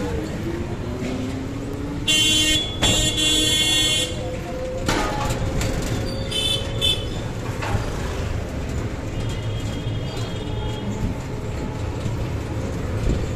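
Busy street traffic heard from a moving rickshaw: a steady low engine and road rumble, with vehicle horns honking over it. Two loud horn blasts come back to back about two seconds in, followed by a shorter honk around six seconds and a fainter one later.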